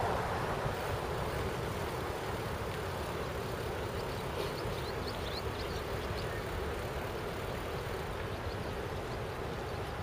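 Steady rushing noise of wind and movement on the microphone of a moving camera, with a few faint high chirps about halfway through.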